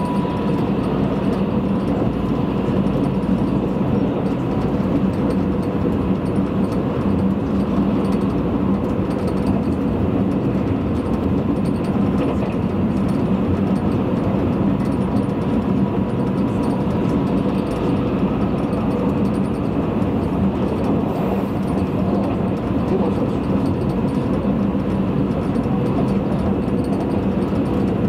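Cabin noise of a Tobu 100-series Spacia limited express train running at speed: a steady rumble with a faint, even hum.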